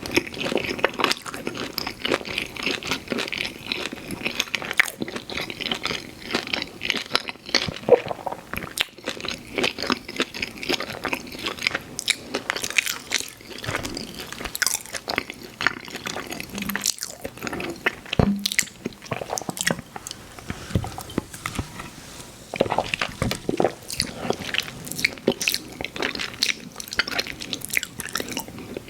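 Close-up eating sounds from pizza: bites into crust and wet, smacking chewing of cheesy pizza, in quick irregular clicks and squishes.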